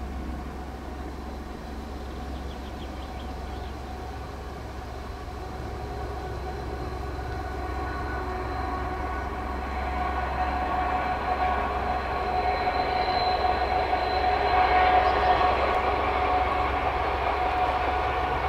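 Czech class 754 diesel locomotive 754 066 with a train, its V12 diesel engine running with a steady whine. It grows louder as it approaches and is loudest a little past the middle.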